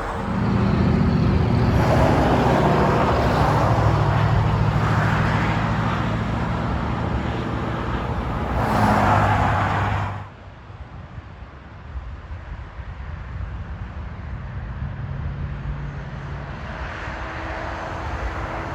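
Highway traffic: vehicle engines running, with a steady low hum from a heavy engine and the rise and fall of vehicles passing. About ten seconds in the sound drops suddenly to quieter, more distant traffic.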